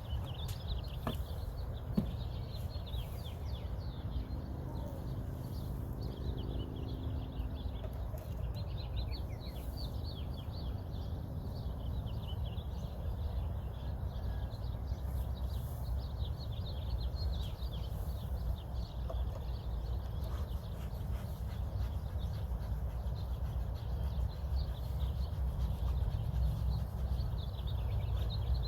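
Outdoor ambience of small birds chirping steadily over a low rumble. There are two sharp knocks about one and two seconds in, and for several seconds near the middle a steady buzzing tone, such as a honeybee flying close by.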